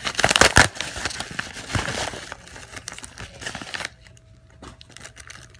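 Padded paper mailer crinkling and rustling as it is handled, loudest about half a second in and dying away about four seconds in.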